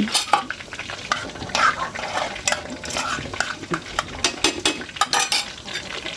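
Food frying and sizzling in a pan of hot fat, with a metal spoon scraping and clinking against the pan in short, irregular strokes.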